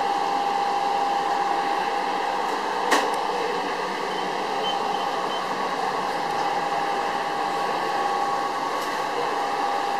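Steady whir of commercial kitchen equipment running, fans and refrigeration, with a constant mid-pitched hum tone. A single sharp click about three seconds in.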